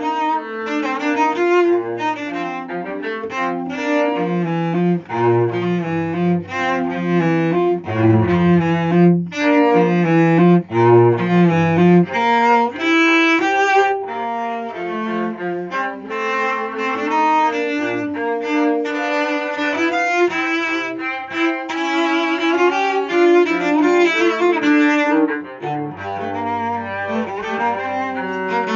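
Cello playing the basso continuo line of a Baroque sonata's Allegro in G minor, bowing a steady stream of quick notes.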